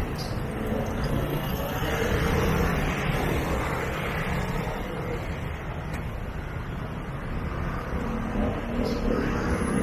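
Busy street-market ambience: a steady mix of crowd murmur and traffic rumble.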